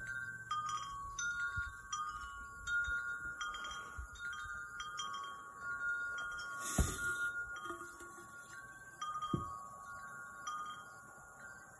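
Wind chimes ringing in a slow, irregular run of clear overlapping tones. A dull thump comes near the middle, and a softer one follows about two and a half seconds later.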